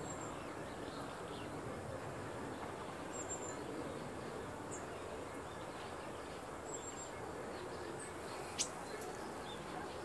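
Steady background noise with a few faint, very high, short bird chirps every few seconds, and one sharp click about three-quarters of the way through.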